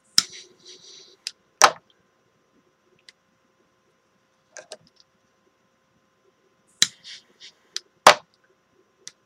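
Irregular sharp clicks and knocks of small tools and parts being handled on a workbench, over a faint steady hum.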